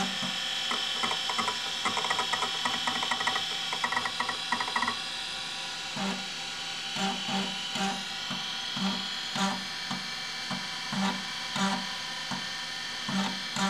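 Kalok Octagon KL-320 MFM hard disk's stepper motor moving the heads during file copying: a rapid run of chattering ticks for the first few seconds, then regular short thuds with a click, just under two a second, over a steady high whine.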